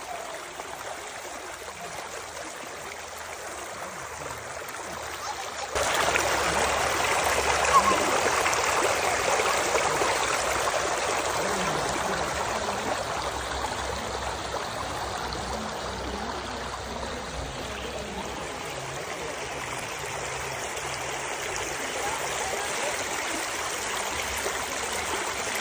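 Shallow creek water flowing steadily, an even rushing sound; it gets suddenly louder about six seconds in, then slowly eases off.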